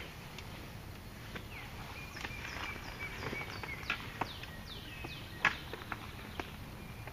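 Woodland birds singing a series of short down-slurred whistled notes, while a camouflage pop-up ground blind is lifted and spread open, its frame and fabric giving scattered rustles and sharp snaps, the loudest about five and a half seconds in.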